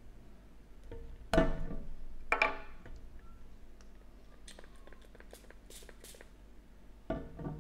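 Body-mist pump sprayer spritzed twice, two short hissing sprays about a second apart, followed by faint scattered ticks.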